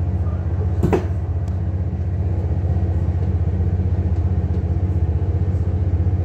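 Underfloor diesel engine of an Irish Rail 22000 Class railcar running steadily as the train pulls away, heard from inside the coach as a low, even hum. A single short knock sounds about a second in.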